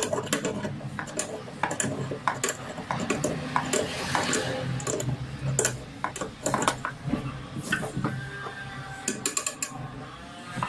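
Metal tools and compressor parts clinking and tapping irregularly as they are handled.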